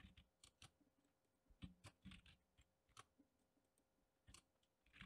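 Faint, scattered clicks of computer keyboard keys and a mouse, a dozen or so taps at irregular intervals, some in quick pairs, over near silence.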